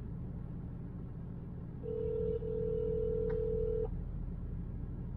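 A single steady beep tone on a phone line on hold, lasting about two seconds with a brief break near its start, heard through the phone's speaker over a low steady hum.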